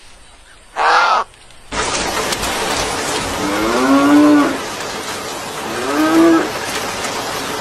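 Cows mooing twice, a long low moo followed by a shorter one, over a steady hiss. A short bird squawk is heard about a second in, before the hiss begins.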